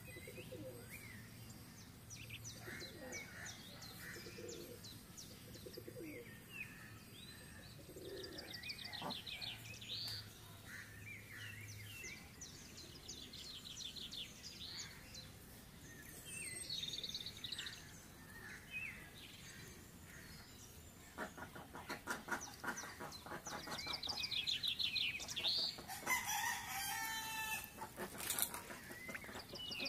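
Birds chirping and calling in short notes and quick trills, getting busier and louder about twenty seconds in.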